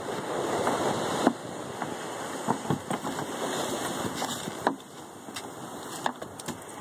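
Steady rushing of wind and surf, easing off a little past the middle, with a few short clicks and knocks from fish and gillnet being handled against the boat's side.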